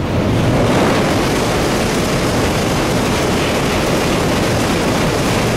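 Tokaido Shinkansen high-speed train crossing a steel girder bridge directly overhead: a loud, steady rush of wheel, rail and bridge noise that comes in suddenly and holds.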